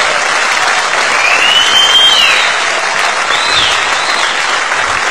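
Studio audience applauding, with a high whistle that rises and falls about a second in and a shorter one a little later.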